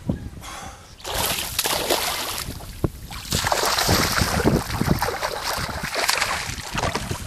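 Water splashing and sloshing over wind rumble on the microphone. It grows from about a second in and is loudest from about three seconds on, as a hooked largemouth bass is fought near a bass boat.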